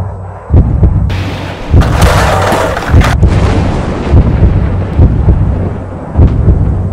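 Dramatic trailer soundtrack: deep booming percussion hits repeating about once every second and a bit, with a loud rushing, thunder-like swell from about one to three seconds in.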